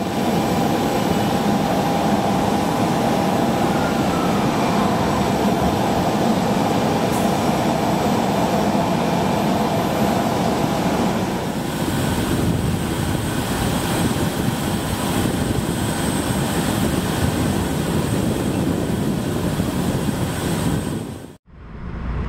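Steady, loud jet-aircraft noise on an airport apron, with a steady high whine over a broad rush. The sound changes about halfway through and cuts off abruptly near the end.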